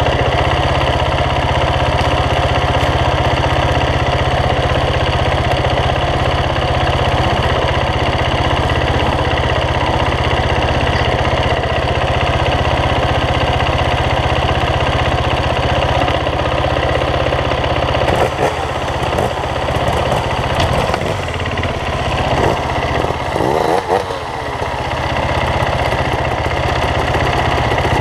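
Dirt bike engines running at close range, idling steadily. About two-thirds of the way in, the engine note starts rising and falling in revs and the loudness turns uneven.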